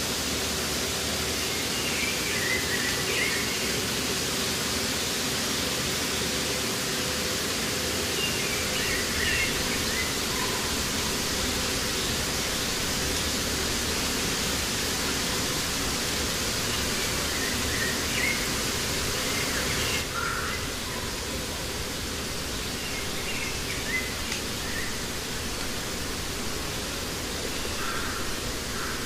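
Steady outdoor nature ambience: an even rushing hiss with short bird chirps scattered every few seconds. The hiss drops a little about two-thirds of the way through.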